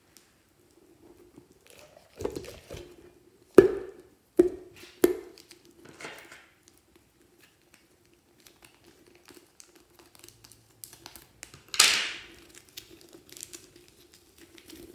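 Rubber spiky puffer-ball toy being handled and cut open with scissors: a few sharp knocks and some crinkling early, then one loud tearing cut about twelve seconds in.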